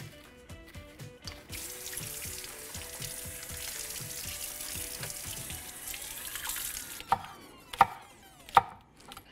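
Kitchen tap running as green onions are rinsed under it, cutting off about seven seconds in; then a knife chopping on a cutting board, three sharp strokes under a second apart. Soft background music plays underneath.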